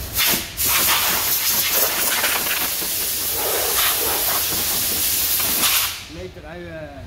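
Compressed-air blow gun hissing as it blows sanding dust off a filled car body panel. A short blast comes first, then a steady blast of about five seconds that cuts off suddenly.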